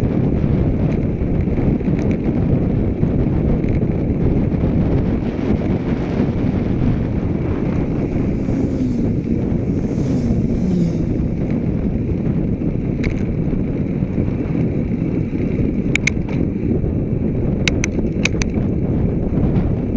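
Steady wind rush on the microphone of a camera mounted on a moving bicycle, with road noise underneath. A motorcycle passes the other way about ten seconds in, and a few sharp clicks come near the end.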